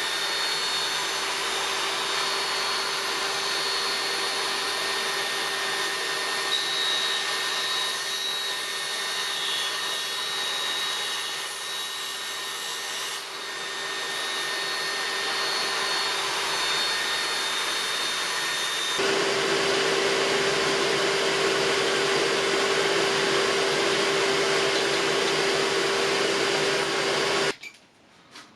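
An electric power tool motor running steadily with a constant whine, its tone shifting about 19 seconds in, then cutting off abruptly near the end.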